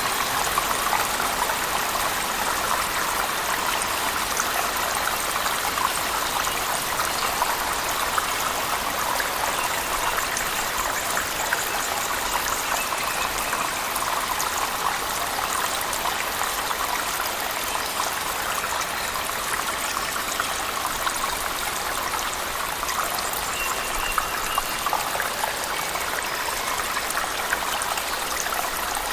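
Waterfall splashing steadily inside a cave, mixed with heavy rain, with scattered fine drips and ticks over the steady rush.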